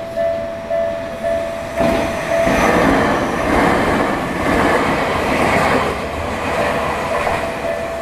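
Japanese level-crossing bell ringing in an even two-tone pulse about twice a second. About two seconds in, a Tokyu Ikegami Line electric train passes over the crossing and drowns the bell out, and the bell comes back through near the end.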